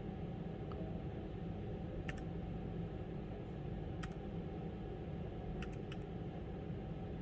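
A few separate key presses on a Keychron K3 low-profile mechanical keyboard, the light button being pressed to step through lighting effects: one click about two seconds in, another about four seconds in, and a quick run of three near six seconds, over a steady low background hum.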